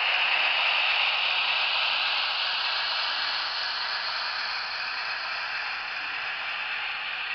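Scale-model Renfe class 251 electric locomotive running along the track: a steady hissing whir of its motor and wheels that fades as it moves away.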